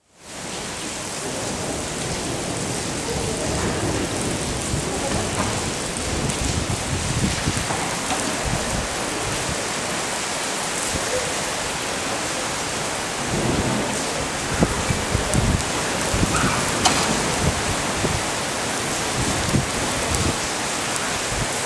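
Heavy rain pouring onto a stone-paved courtyard: a loud, steady hiss of downpour.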